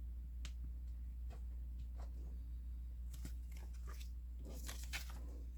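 Faint rustling and crinkling of cross stitch kit packaging and enclosed papers being handled, a few soft crackles with a small cluster near the end, over a steady low hum.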